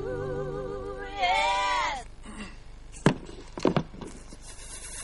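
A singing voice holds a note with a heavy, wavering vibrato, then a higher, louder note that falls away and stops about two seconds in. A few sharp knocks follow over a quieter background.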